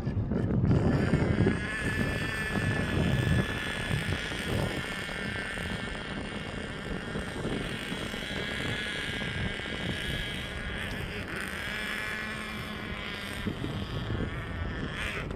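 Airbus A380's jet engines running as the airliner passes: a steady rumble, loudest in the first second or two, under a high whine whose pitch shifts about eleven seconds in.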